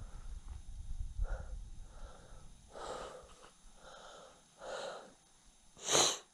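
A hiker breathing hard: about six breaths roughly a second apart, the last a short, loud puff of breath near the end.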